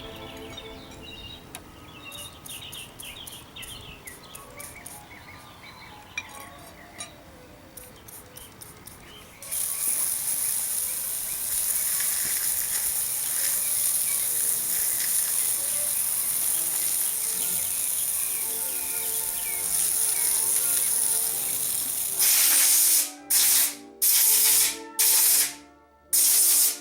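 Loud steady high hiss of a pressure spray cleaning grease and grime off a leg vise, starting about a third of the way in, then cut into several short bursts near the end. Quiet music plays underneath.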